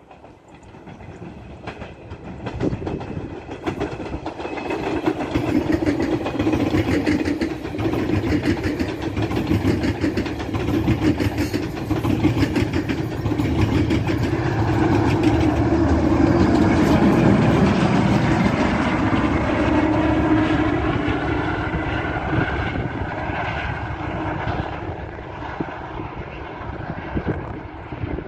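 GO Transit push-pull commuter train of bi-level coaches passing at about 65 km/h, pushed by two diesel locomotives (an MP54 and an MP40). It rumbles with wheels clattering on the rails. The sound builds as the train approaches, is loudest as the locomotives at the rear go by about halfway through, then fades as it moves away.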